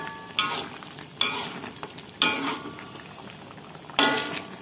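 A spatula stirring chicken, carrots and potatoes in soy sauce in a metal wok: about four scraping strokes against the pan, each with a brief metallic ring, over the low sizzle of the cooked dish.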